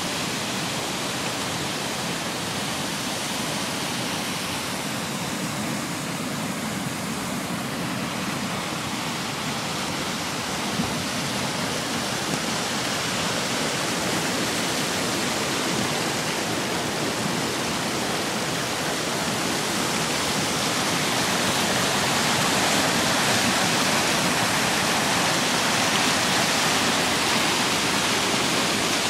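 A flooded creek rushing over a mill dam: a steady, even rush of water that grows slightly louder about two-thirds of the way through.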